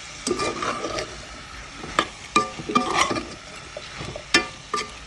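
A metal spoon stirring chopped chayote and shrimp in a pot, scraping through the vegetables and clinking sharply against the pot several times, in a cluster around two to three seconds in and twice more near the end.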